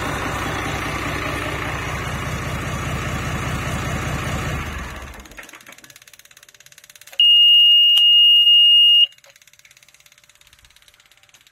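FPT Iveco N60-400 six-cylinder marine diesel running steadily, then shut down and running to a stop about five seconds in. About two seconds later the engine instrument panel's buzzer sounds one loud, steady, high beep lasting about two seconds.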